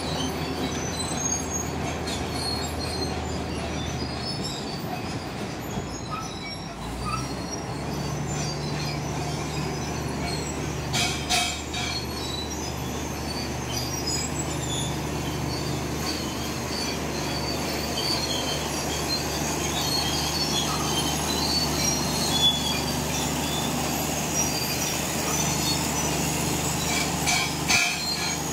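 BEML D155A bulldozer's Cummins KT1150 six-cylinder diesel running steadily as the dozer pushes material with its blade, the engine note shifting a few seconds in. Squealing and squeaking from the steel crawler tracks runs over it, with two short metallic clanks, one about a third of the way in and one near the end.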